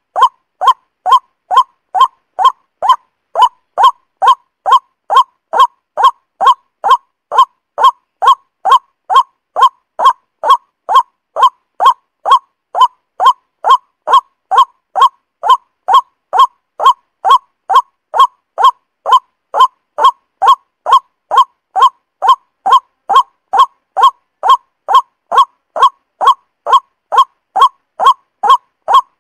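Bird-lure recording of the truok sawah, a paddy-field bird: one short call repeated at perfectly even spacing, a little more than twice a second.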